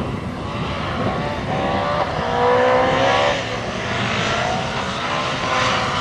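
Opel Adam rally car's engine revving up under acceleration, with a gear change about three seconds in, after which the revs climb again. A steady hiss of tyre spray from the wet track runs underneath.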